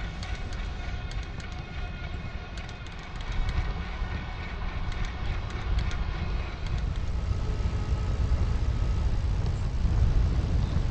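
Low rumble of wind and road noise while riding an e-bike, with faint steady whining tones and light ticks that die away after about six seconds.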